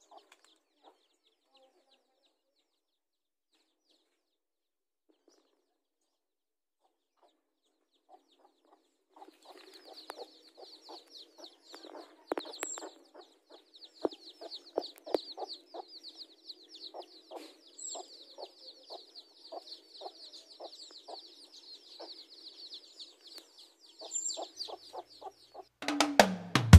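A mother hen clucking low and repeatedly while her chicks peep shrilly and almost without pause, starting about nine seconds in after near silence. Guitar music comes in right at the end.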